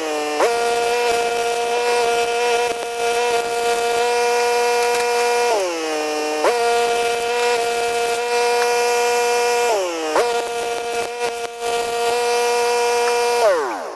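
Electric power tool motor running at a steady high whine. It bogs down in pitch three times as it is pressed into the work, recovers each time, then spins down and stops near the end.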